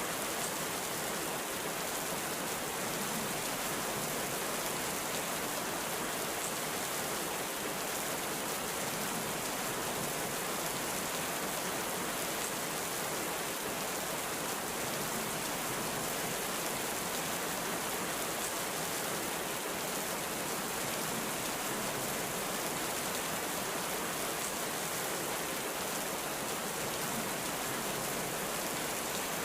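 Heavy rain falling steadily, an even hiss with no rumble of thunder and no let-up.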